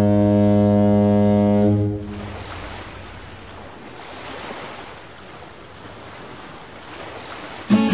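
A boat's horn holding one long, low, steady blast that stops about two seconds in, followed by a quieter rush of wind and sea. Guitar music cuts in at the very end.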